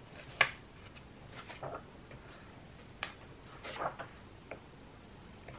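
Paper pages of a large colouring book being turned by hand: a few short, soft rustles and swishes, the first the loudest.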